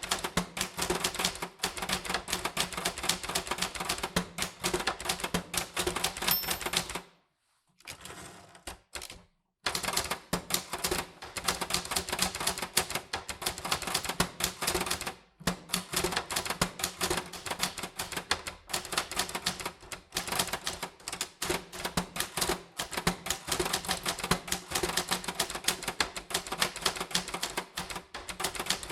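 Typewriter keys striking in quick, uneven succession. The typing stops for about two and a half seconds around seven seconds in, with only a faint softer sound during the gap, and pauses briefly again about fifteen seconds in.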